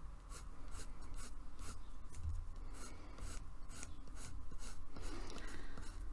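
Coloured pencil sketching on paper: short, light scratching strokes, about three a second, as loose rough lines are laid down.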